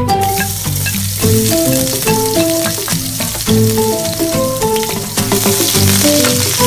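Chopped garlic sizzling in hot oil in a non-stick frying pan, the hiss starting suddenly as it is dropped in and going on steadily as it is stirred with a spatula. Background music with a simple melody plays throughout.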